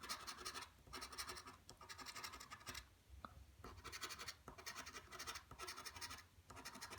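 Scratching the coating off a lottery scratch-off ticket, in short runs of quick strokes with brief pauses between them.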